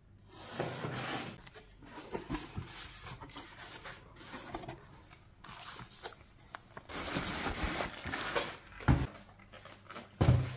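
A cardboard box and its packaging being opened by hand: tape and cardboard tearing, with rustling in fits and starts and two heavy thumps near the end.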